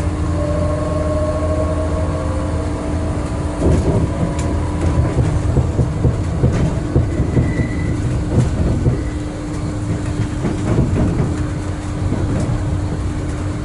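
An Intercity Express Train heard from inside a passenger coach as it accelerates away: a slowly rising whine over a steady low hum, then, from about four seconds in, the wheels clattering and knocking irregularly as the train crosses points and rail joints.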